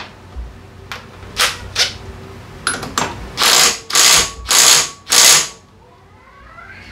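A power tool run in short bursts: a few clicks and two brief bursts, then four longer bursts of about half a second each in quick succession.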